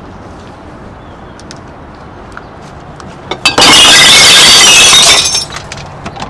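Glass bottles tipped from a plastic crate into a glass-recycling bin: a loud crash of glass on glass lasting just under two seconds, starting about three and a half seconds in, then a few scattered clinks as the pieces settle.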